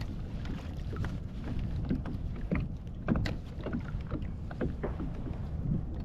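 Water splashing and lapping around a kayak, with short sharp splashes or knocks now and then over a steady low wind rumble on the microphone.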